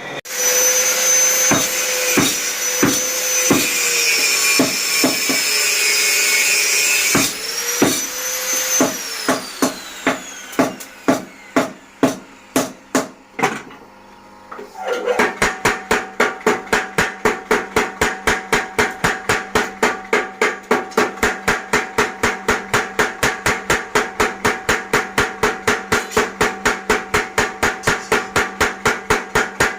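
A loud whirring, hissing machine noise with a high whine winds down about seven seconds in. Then a blacksmith's mechanical power hammer strikes hot spring steel, first in slow blows about twice a second, then from about halfway in with rapid, even blows about four a second over the hum of its running motor.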